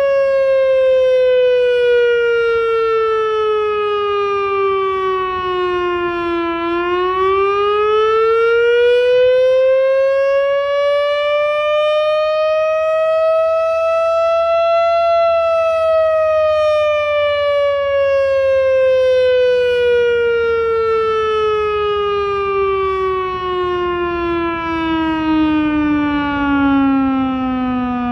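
Loudoun Masterblaster outdoor warning siren sounding a test in a slow wail, a loud rich tone with many overtones. Its pitch falls for about six seconds, climbs for about eight, then slides slowly down through the rest.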